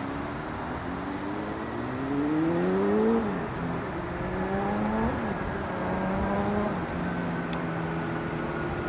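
Turbofan whine of an Embraer ERJ-145's Rolls-Royce AE 3007 engines, falling slowly in pitch as the jet rolls out after landing. Under it, an engine rises in pitch three times and drops back sharply each time, like a vehicle shifting up through its gears; it is loudest about three seconds in.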